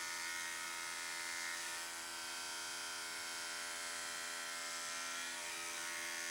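Electric dog grooming clippers running with a steady buzz.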